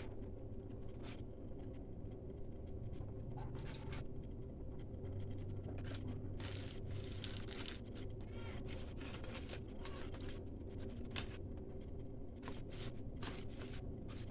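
Aluminium foil crinkling and crackling in short, irregular bursts of sound as a hand presses and rubs crushed ginger and garlic over a whole tilapia lying on it, over a steady low hum.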